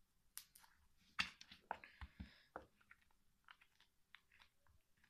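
Slime being squeezed and worked in the hands, making faint, irregular sticky clicks and squelches.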